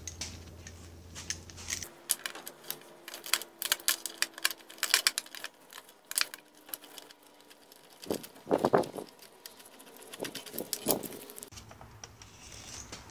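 Hand ratchet clicking in quick runs of strokes as a bolt is backed out, followed near the end by a few louder clunks and scrapes.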